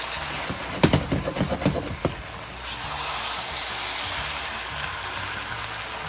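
Spaghetti, chicken and vegetables sizzling on high heat in a nonstick pan as they are stir-fried and tossed with a spatula. About a second in comes a quick run of knocks and scrapes of the spatula against the pan, then a steady sizzle.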